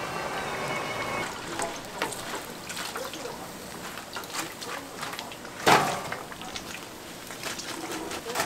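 Food stall kitchen sounds: scattered clinks and knocks of utensils and dishes over trickling, pouring liquid, with one louder clatter a little past halfway.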